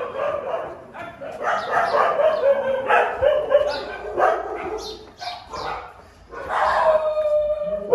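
Free-roaming street dogs barking in a rapid series of repeated barks, with one drawn-out cry near the end.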